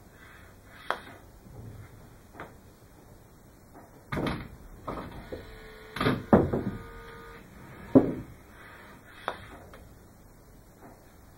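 A golf putter striking a ball, among a series of sharp clicks and knocks a second or two apart from the putter and its metal training-aid rails, with a brief ringing tone midway.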